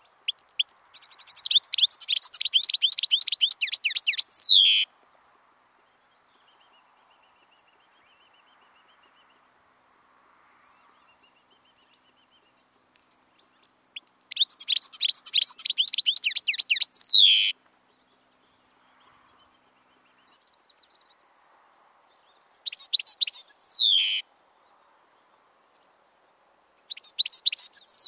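European goldfinch singing: four bursts of fast, twittering song, each ending in a falling note, with pauses between them.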